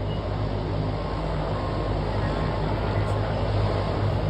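Steady low engine hum with a rushing noise over it, as heard from inside a car.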